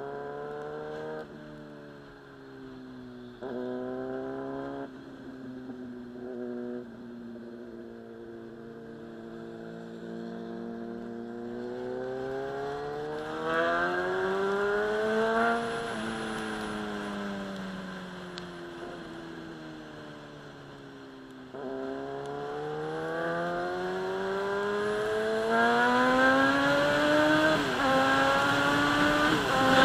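Inline-four sportbike engine accelerating through the gears: revs climb and drop back at quick upshifts several times. It then makes a long rise in revs, falls slowly as the throttle eases, and pulls up through the gears again, loudest near the end.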